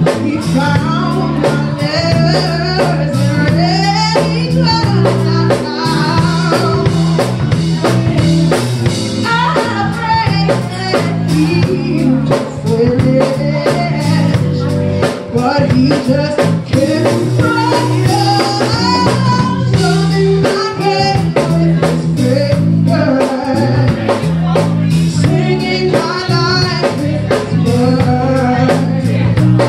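Live band playing a slow soul groove on electric guitar, electric bass and drum kit, with a woman singing over it.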